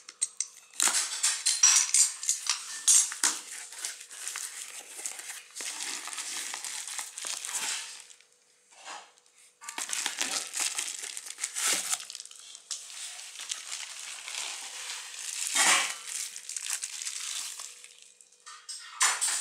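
Cardboard shipping carton being opened by hand: a box cutter slitting and tearing the packing tape, then the flaps and the bubble wrap around the contents rustling and crinkling as they are handled, with a short lull about halfway through.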